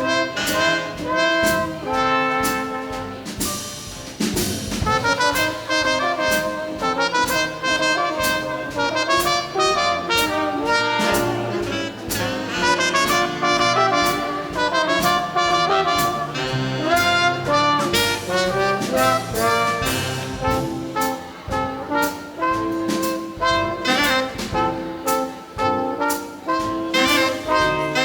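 Big band playing a swing jazz ballad, a trombone and trumpet leading over a rhythm section that keeps a steady beat.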